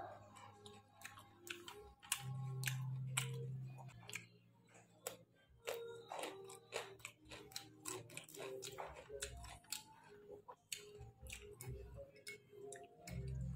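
Close-up chewing and mouth sounds of a man eating roast pork: wet smacking with crunchy crackles, and a low steady hum for a couple of seconds about two seconds in.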